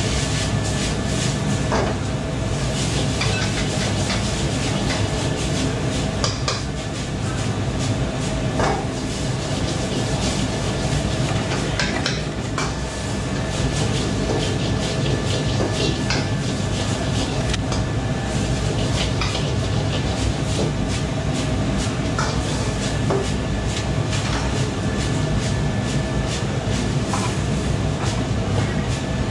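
Stir-frying in a wok over a high gas flame: a steady rushing noise from the wok burner and extraction hood, with frequent sharp metal clanks and scrapes of the ladle against the wok.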